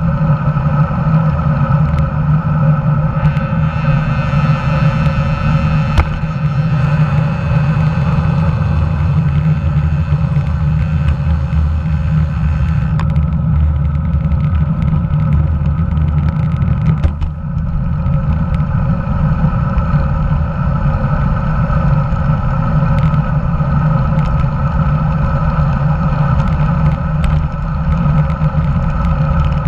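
Loud, steady wind rumble and road vibration picked up by an action camera mounted just below a road bike's handlebars while riding, easing briefly about seventeen seconds in.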